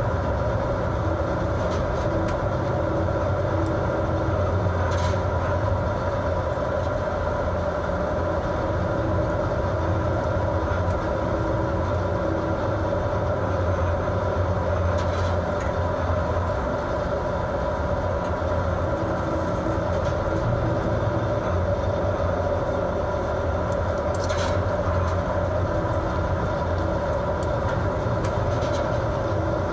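A fishing vessel's engines and machinery droning steadily, a constant hum with several held tones in it. A few faint ticks come through now and then.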